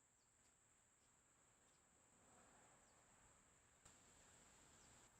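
Near silence: only a faint, steady high-pitched tone over faint hiss.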